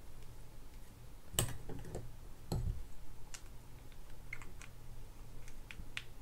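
Light clicks and taps of metal reel parts as the handle and its retaining nut are fitted onto a Canyon Reels HS-13 conventional fishing reel and tightened by hand. There are two heavier knocks, about one and a half and two and a half seconds in.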